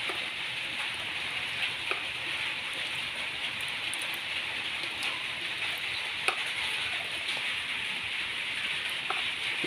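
Steady hiss of light rain falling on wet ground, with a few faint clicks.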